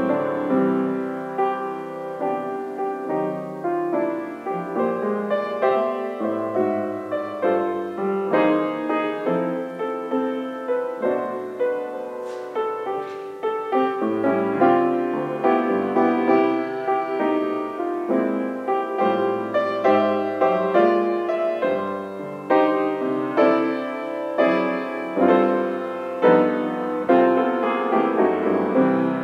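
Piano playing a gentle, flowing piece, each note struck and then dying away.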